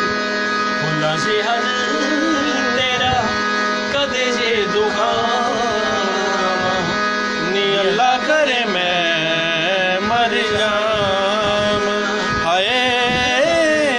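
A man sings a winding, ornamented melody in an Indian light-classical or folk style, over steady held accompanying notes.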